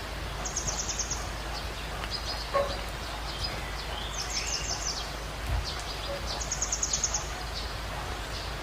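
Birds calling outdoors: a rapid high trill of short notes comes three times, with scattered chirps between, over a steady background hiss.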